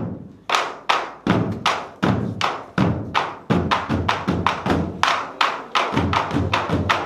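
Korean buk barrel drums struck together in unison by a group of drum dancers, sharp beats with a ringing tail. The beat quickens through the passage, from about two or three strikes a second to about four or five a second in the second half.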